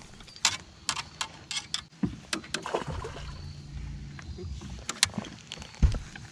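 A run of sharp clicks and knocks from handling gear on a fishing boat, with a low steady hum in the middle.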